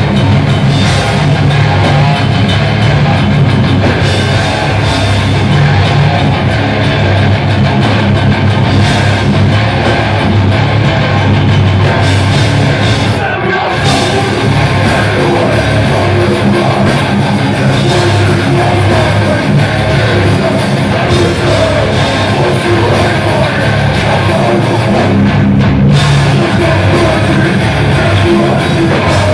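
Live hardcore metal band playing loud: two distorted electric guitars, bass guitar and drum kit.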